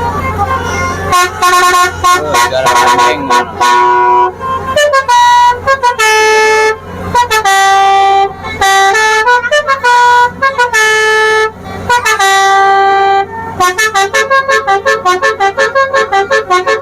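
Telolet basuri multi-tone musical horn on a tourist boat playing a tune: a series of held notes, each about a second long, stepping up and down in pitch. Near the end it breaks into a fast string of short toots.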